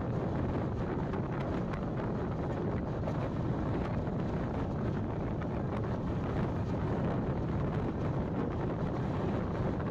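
Wind buffeting the microphone: a steady rushing noise with a heavy low rumble and no distinct events.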